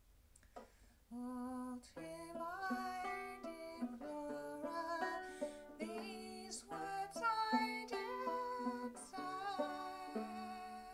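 Banjo picked in a folk-song accompaniment with a woman singing over it. A few soft plucks come first, and the voice and fuller picking come in about a second in.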